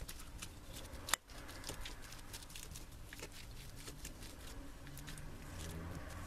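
Metal fork mashing boiled potatoes in a ceramic bowl: faint, quiet squashing with many small clicks and scrapes of the tines against the bowl, and one sharper click about a second in.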